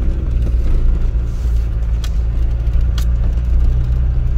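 Car engine and road noise heard from inside the cabin while driving uphill: a steady low rumble, with two sharp clicks about a second apart near the middle.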